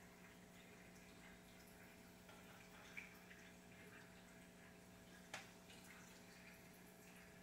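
Very faint aquarium filter: water trickling and dripping over a steady low hum. Two soft clicks, one about three seconds in and a sharper one about five seconds in.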